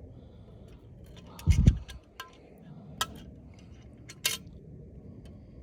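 Spoon clinking against a bowl as soup is stirred: a few sharp clinks spaced about a second or so apart, with smaller ticks between. A dull thump comes about a second and a half in.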